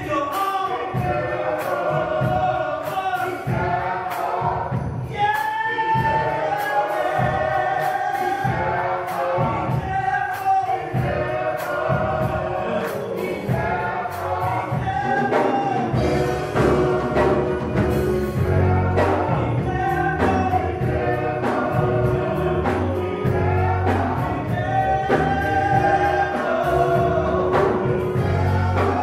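Men's gospel vocal group singing in harmony, backed by keyboard and a drum kit keeping a steady beat.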